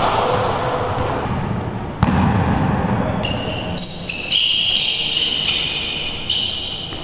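Basketball bouncing on a hard indoor court during one-on-one play, with a sharp bounce about two seconds in, then high-pitched squeaks of sneakers on the floor over the second half.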